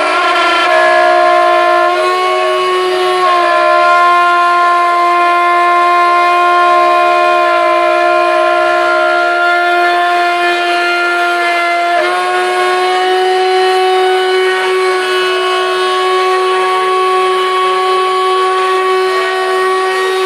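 CNC router spindle cutting a metal plate with a 6 mm end mill, giving a loud, steady, high whine of several tones at once. The pitch steps a few times, about 2, 3 and 12 seconds in, as the cut changes, and fainter rising and falling tones run underneath.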